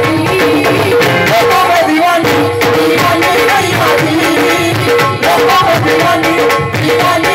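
Live Indian devotional music played loud through a PA system: a woman singing into a microphone over a steady hand-drum rhythm and held accompanying notes.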